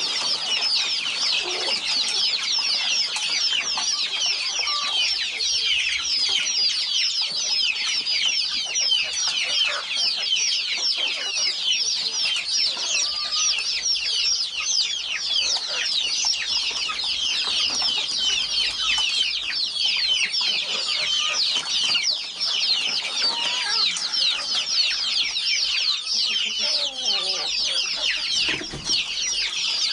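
Many chickens peeping together in a dense, continuous high-pitched chorus of short overlapping chirps, with a few lower clucks now and then, mostly near the end.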